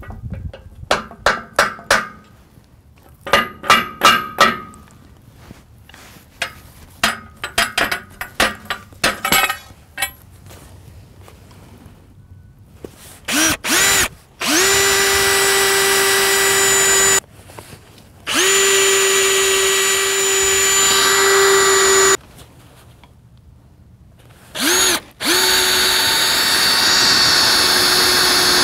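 Small sledgehammer striking the steel pipe assembly on a steel sawmill bed, a series of ringing metal blows in clusters over the first ten seconds. Then a cordless drill drills into the steel bed frame: short spin-ups with a rising whine, then three long steady runs with pauses between them.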